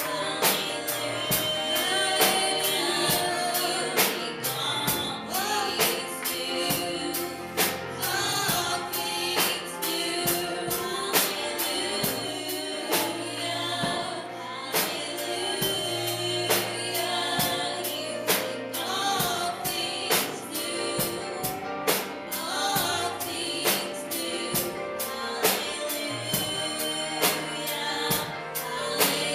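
A gospel song sung by female vocalists over instrumental accompaniment with a steady drum beat, about two beats a second.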